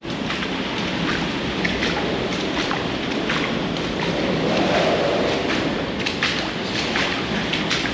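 Hurricane Ian's winds rushing steadily against the building, heard from inside, swelling in a gust a little before the middle. Short irregular ticks and splashes of shoes walking through shallow water on a tiled floor run through it.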